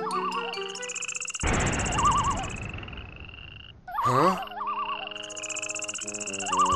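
Cartoon nature sound effects: frogs croaking in short warbling trills every couple of seconds, with a high, rapid insect chirring in two long stretches. Steady held tones sit underneath.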